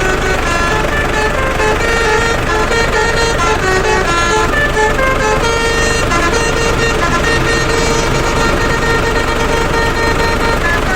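Basuri telolet truck horn playing a tune: a quick, continuous run of horn notes stepping up and down in pitch, over a steady low rumble.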